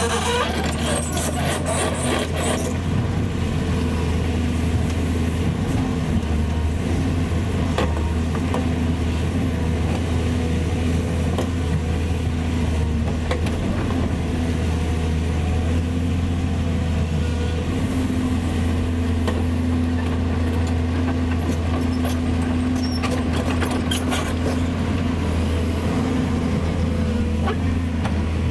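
Volvo EC210B crawler excavator's diesel engine running steadily as the machine travels on its steel tracks, with scattered clicks and clanks from the track links, a cluster in the first few seconds and more near the end.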